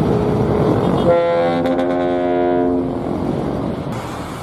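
A bus horn sounds one steady blast lasting about a second and a half, starting about a second in, over the noise of passing traffic.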